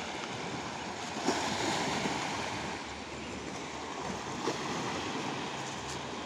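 Small waves washing steadily onto a sandy, rocky shore, with a couple of short clicks, the sharpest about a second in.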